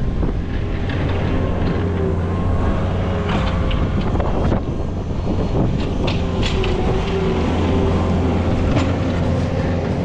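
New Holland skid steer's diesel engine running steadily while its plow pushes snow, with occasional clicks and wind on the microphone.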